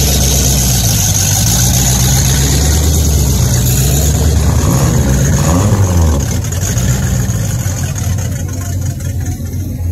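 Pickup truck engine running in the mud bog, revving up and back down about five seconds in, then easing off as the truck pulls away.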